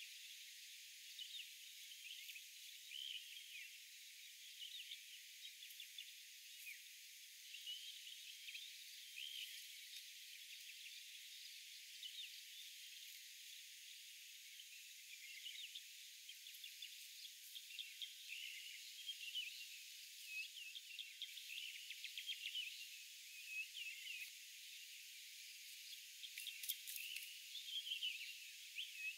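Faint morning forest ambience: many small birds chirping and twittering in short, overlapping calls, over a steady high insect hiss.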